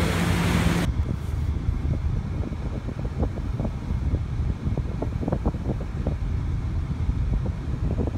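A motorboat's engine hum and rushing noise cut off sharply about a second in, giving way to the low, steady rumble of a car driving on a highway, heard from inside the car.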